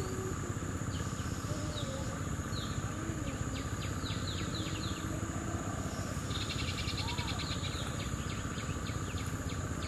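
Outdoor pond-side ambience: a steady high insect drone over a constant background hiss, with birds chirping, a run of quick falling chirps midway and a short rapid trill soon after.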